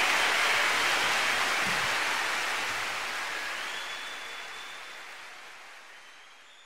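Concert audience applauding at the end of a live jazz recording, with a long high whistle from the crowd a little past halfway, the whole fading out steadily.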